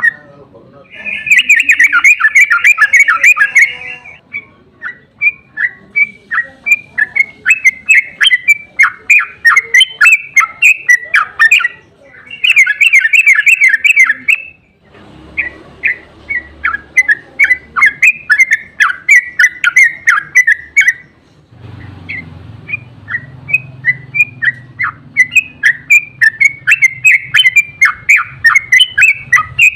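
Yellow-vented bulbul (trucukan) singing: a run of quick, bubbly chattering notes, broken twice by a dense, rapid rattling trill (the 'ropel'), one about a second in and one near the middle.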